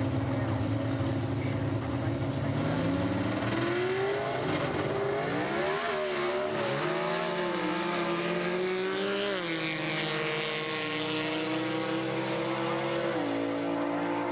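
Drag racing car's engine running, its pitch rising and then wavering up and down as the car pulls away down the strip, then settling to a steady tone with a step down in pitch near the end.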